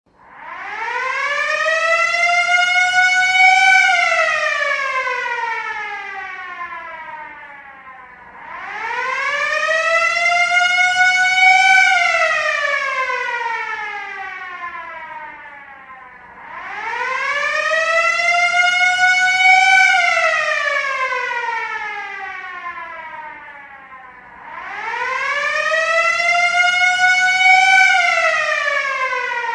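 A siren wailing in slow cycles, four times in all. Each cycle rises in pitch for about three and a half seconds, then falls for about four, and it swells louder as it rises.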